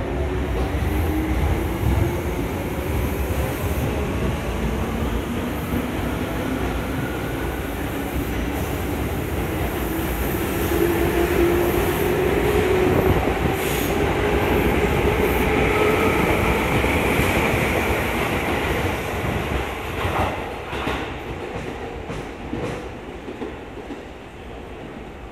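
Tobu Tojo Line electric commuter train pulling out and gathering speed past the platform. A whine from its traction motors rises steadily in pitch over wheel and rail noise. The sound is loudest in the middle and fades as the last cars clear, with a few wheel clicks near the end.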